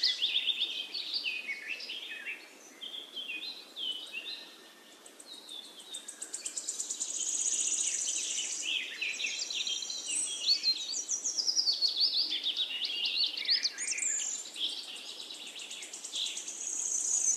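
Several birds singing together: overlapping chirps, rapid trills and falling whistled notes over a faint hiss, dipping briefly about four to five seconds in.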